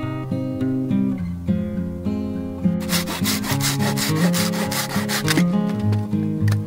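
Hand saw cutting through a dry branch in quick, even strokes for about two and a half seconds, starting about three seconds in, over background acoustic guitar music that plays throughout.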